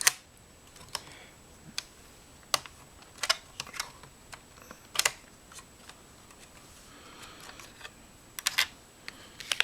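Irregular sharp clicks and small taps of a laptop's memory slot being worked by hand: the retaining clips pushed aside and the memory modules lifted out and handled.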